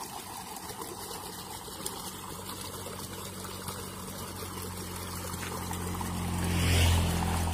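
Water trickling and flowing steadily, with a low engine hum that grows louder and is loudest shortly before the end.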